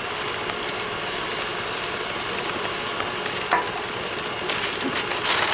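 Electric stand mixer running steadily at speed, beating butter and sugar until light and creamy for shortbread dough.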